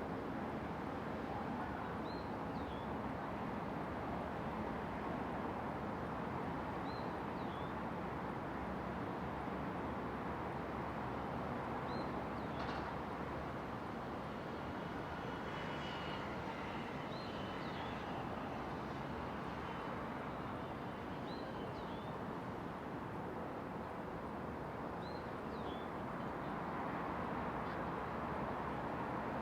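Steady hum of distant city traffic, with a small bird giving a short high chirp every few seconds.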